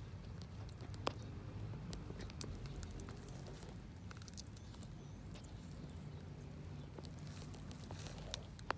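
Sulcata tortoise biting and tearing romaine lettuce: scattered small crisp snaps and crunches, with a sharper crack about a second in and another near the end, over a low steady rumble.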